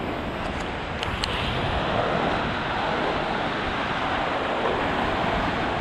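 Sea surf washing onto a sandy beach, a steady rushing that swells a little after the first second.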